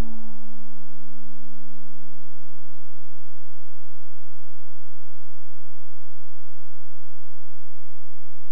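Steady electrical hum from the stage sound system, with the tail of a held note from the band fading out about three seconds in.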